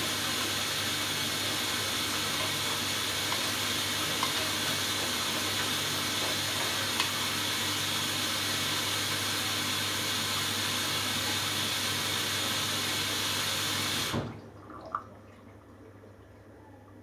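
Hoover Dynamic Next washing machine taking in water for its final rinse: a steady rushing hiss of water through the inlet valve into the drum, which cuts off suddenly about 14 seconds in as the valve closes, followed by a small click.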